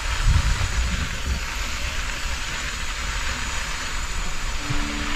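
Wind rushing over a bike-mounted camera's microphone, with a gusty low rumble, and tyre noise from a loaded bicycle rolling along a sandy dirt road. A few steady musical tones come in near the end.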